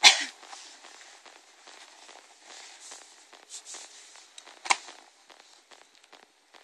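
Crunching steps in packed snow and the handling of a horse's saddle tack at the girth, with many small crackles and two sharp clicks, one at the very start and one about four and a half seconds in.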